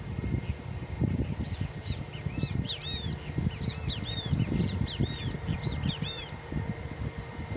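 A bird calling in a rapid series of short, arching chirps, starting about a second and a half in and stopping near the end, over a low, gusty rumble.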